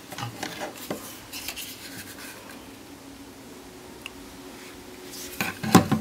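Hard plastic doorbell unit being handled: scattered clicks, knocks and scrapes as it is picked up and turned over on a wooden floor, with a louder cluster of knocks and scrapes near the end.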